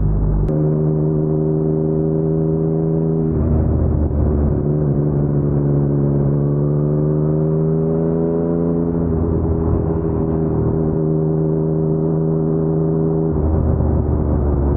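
Yamaha MT-09 three-cylinder engine through an Akrapovic full-system exhaust, running at low revs in traffic. Its note changes several times: the pitch climbs slowly through the middle and drops back about nine seconds in.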